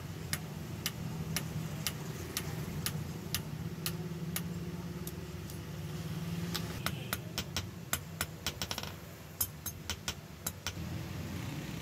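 Light, sharp metal taps at a steady two a second, then a quicker irregular run of taps and a few scattered ones, as a blacksmith works a knife on a steel anvil with hammer and tongs, over a low steady hum.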